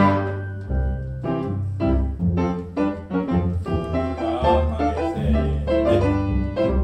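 A youth ensemble playing a piece of music: a run of chords changing about every half second over a bass line.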